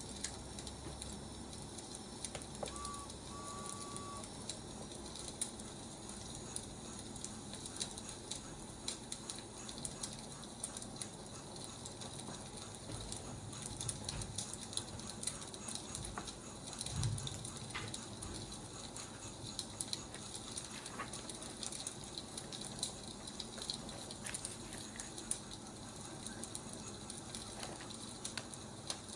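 Wood fire burning with a steady dense crackle of small pops and snaps. Two short beeps sound about three seconds in, and there is a low thump about halfway through.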